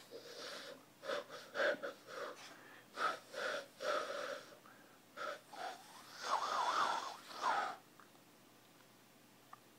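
Hand whistling: breathy, pitched notes blown through cupped hands, first a series of short notes, then a longer wavering passage, stopping about eight seconds in.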